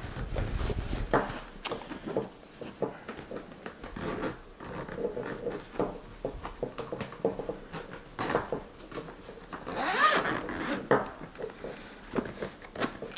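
Zipper on a canvas drone carry bag being pulled open in short runs, with rustling and handling of the fabric.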